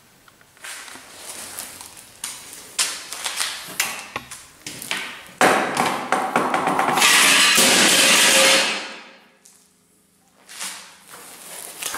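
Knocks and clatter of metal parts and tools being handled on a steel workbench, then a loud, steady scraping noise for about three seconds that stops short, followed by a few more knocks near the end.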